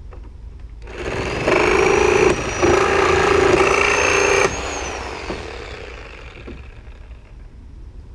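Skil reciprocating saw with a Milwaukee nail-embedded wood-cutting blade cutting through the nails that hold a pallet board. It saws for about three and a half seconds with a brief let-up partway through, then the motor winds down with a falling whine.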